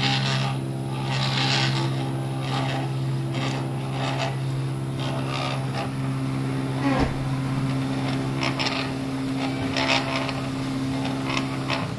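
NEMA 17 stepper motors driving the axes of a homemade CNC milling machine: a steady whine made of several tones, with a short pitch glide about seven seconds in. Irregular bursts of hiss-like scraping noise come and go on top.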